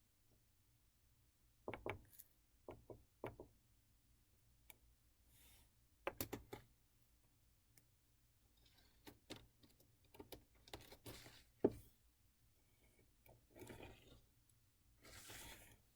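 Faint, scattered clicks and short rustles of small plastic toy parts being handled, a few at a time with quiet gaps between.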